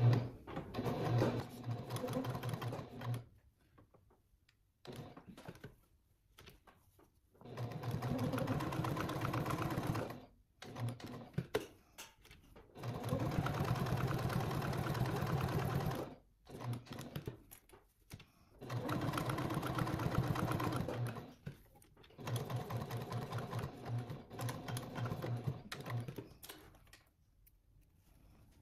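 Janome HD9 sewing machine stitching fabric in about five runs of two to four seconds each, stopping briefly between them.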